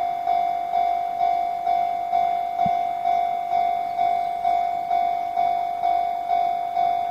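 Japanese level-crossing warning bell ringing, an even ding repeating about twice a second: the crossing is closed, warning that a train is coming.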